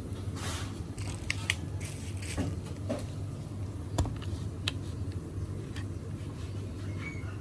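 Packaging being handled during an unboxing: brief rustles and scattered sharp clicks, the loudest about four seconds in, over a steady low hum.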